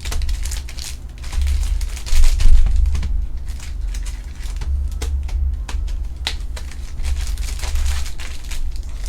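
Hands handling trading card packs and cards on a table: crinkling foil wrappers and scattered clicks of cards, over dull low bumps from handling.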